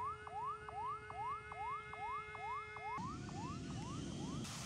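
Runway warning siren sounding in quick rising sweeps, about two and a half a second, over steady tones, which warns people off the runway. About three seconds in, a jet airliner's broad rushing noise as it lands on a wet runway takes over, and the siren fades beneath it.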